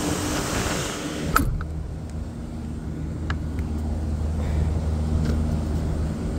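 Running rooftop make-up air unit humming steadily, its blower and refrigeration machinery giving a low hum of several even pitches. An airy hiss drops away at a sharp knock about a second and a half in, and a lighter click follows a little past the middle.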